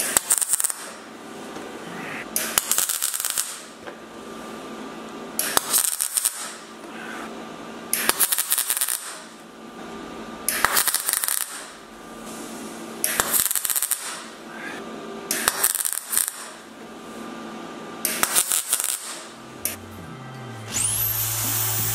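MIG welder stitch-welding a sheet-steel repair panel into a car's wheel well: about eight short crackling bursts of under a second each, roughly two and a half seconds apart. Near the end a small grinder spins up with a high rising whine and keeps running.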